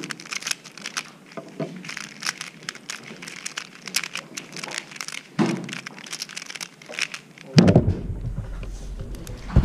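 Cubicle Volt MS Square-1 puzzle being turned fast in a speedsolve: a rapid, uneven run of plastic clicks and clacks as the layers turn and slice. Near the end a heavier thump comes as the puzzle is set down and the hands come down on the stackmat timer pads, stopping the timer.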